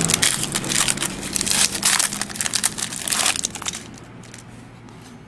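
Trading-card pack wrapper crinkling as it is handled and opened, a dense rapid crackle that dies away after about three and a half seconds.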